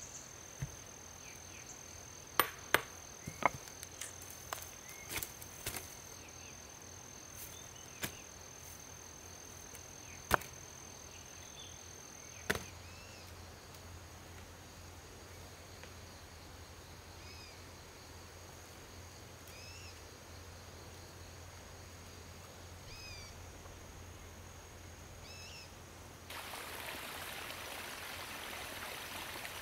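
Sharp, scattered knocks of rocks clacking together as lumps of iron ore are picked up and handled, over a steady high-pitched insect drone. About halfway the knocks stop and short chirps repeat every second or two, and near the end a steady rushing noise comes in.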